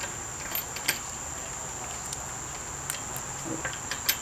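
Scattered light metallic clicks and ticks as a loosened lug nut is spun off its wheel stud by hand, over a steady high-pitched whine.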